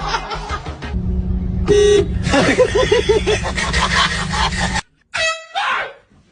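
Air horn blasting: a short blast about two seconds in, then a long loud stretch that cuts off suddenly near five seconds, and another short blast just after.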